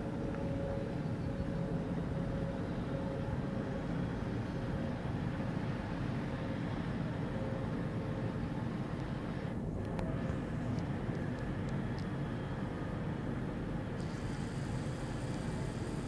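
Steady low rumble of outdoor background noise, with a faint hiss above it.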